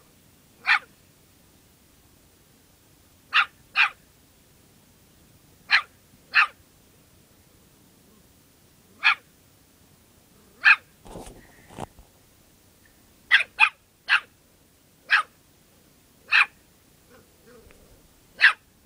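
Small dog giving short, sharp, high-pitched barks at a lizard, about thirteen in all, singly or in quick pairs every second or two.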